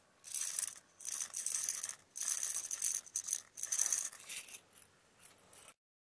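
Small sugar pearls rattling against a ceramic pouring cup as they are tipped out, in several short bursts with pauses between, stopping abruptly just before the end.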